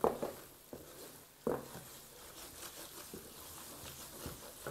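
A spoon stirring and scraping a thick starch-and-butter paste in a metal pan, with a few short knocks of the spoon against the pan, the sharpest at the start and about a second and a half in.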